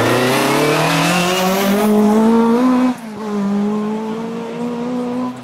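Ford Escort Mk2 rally car accelerating hard, its engine note climbing steadily. About three seconds in the pitch drops sharply at an upshift, then climbs again more slowly as the car pulls away and grows quieter.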